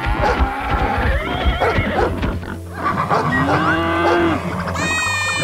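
Cartoon farm-animal sound effects over children's background music: a cow mooing in one long low call about three seconds in, then a high-pitched animal call near the end.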